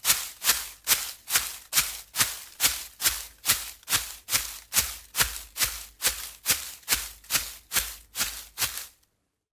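Running footsteps of shoes on forest ground, a steady crunching stride of about two and a half steps a second that stops about nine seconds in.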